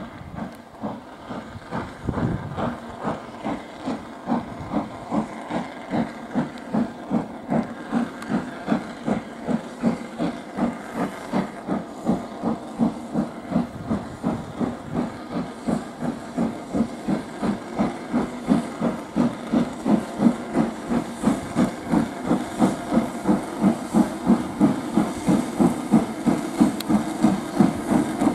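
Southern Railway S15 class 4-6-0 steam locomotive No. 847 pulling away with a train. Its chimney exhaust beats about twice a second, a little faster and louder as it comes closer, with steam hissing from around the cylinders.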